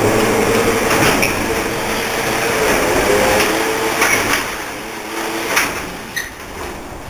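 Garage door opener motor starting with a rising whine and running steadily as it drives the door, with clanks and rattles from the door and track. The run fades out about six seconds in.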